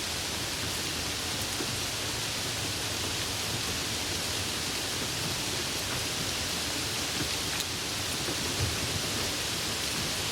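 Storm rain falling steadily: an even, unbroken hiss.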